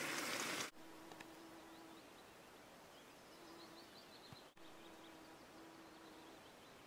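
Faint quiet outdoor ambience with distant small birds: quick series of high chirps a few seconds in and again near the end, over a faint low hum that comes and goes. In the first second a louder steady hiss cuts off abruptly.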